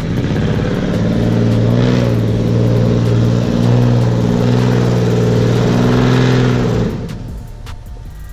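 Off-road vehicle's engine held at high revs under load for about seven seconds, its pitch staying fairly steady, then backing off sharply near the end.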